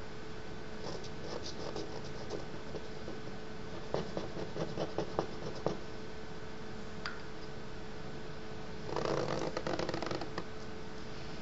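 Thin ink-dipped stick scratching and tapping across paper: scattered light scratches and taps, then a denser stretch of scratchy scribbling about nine seconds in lasting just over a second. A steady background hum runs underneath.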